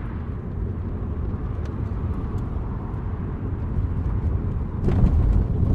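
A car's road noise heard from inside the cabin at motorway speed: a steady low rumble of tyres and engine that grows louder, stepping up about five seconds in.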